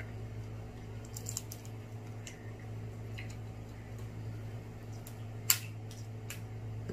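Scattered sharp clicks and cracks of snow crab leg shells being broken and picked apart during eating, a few close together about a second in and the loudest about five and a half seconds in, over a steady low hum.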